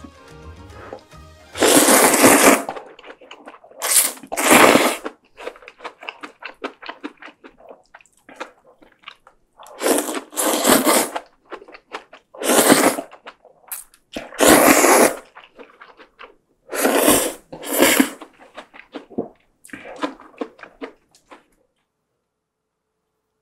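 Loud slurps of rice noodles in spicy broth, sucked up off chopsticks about ten times, often two in quick succession, with faint chewing ticks between. Background music is heard only during the first second or so.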